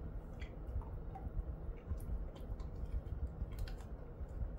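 A Jindo-mix dog chewing a small treat: faint, irregular crunching clicks from its teeth, over a steady low rumble.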